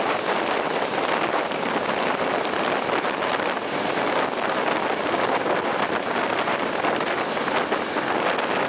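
Regional train running at speed through a tunnel, heard at an open window: a steady, loud rush of wind and wheel-on-rail noise.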